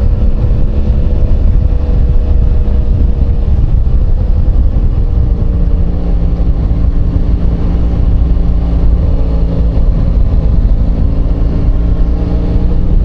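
Engine and road noise of a moving vehicle: a steady low rumble with a droning engine note that drifts slightly in pitch.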